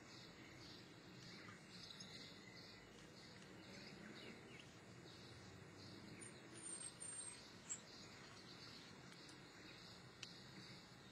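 Near silence: faint background hiss with a few faint, high, short chirps a little past the middle.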